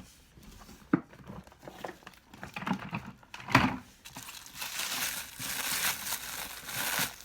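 Plastic packaging being handled and pulled off vacuum cleaner parts, with a few sharp knocks in the first half, then dense crinkling of plastic through the second half.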